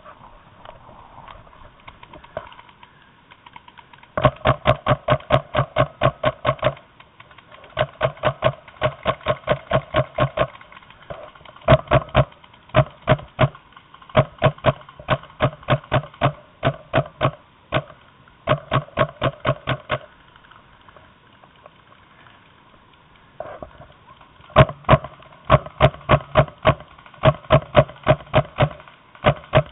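Paintball marker firing in rapid strings, about eight shots a second, in repeated bursts of one to three seconds with short pauses between.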